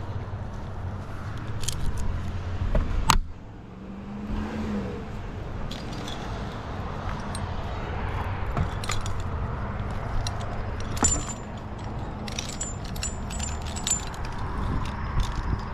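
Metal climbing hardware (carabiners and rings) jangling and clinking in irregular clicks, with one sharp knock about three seconds in.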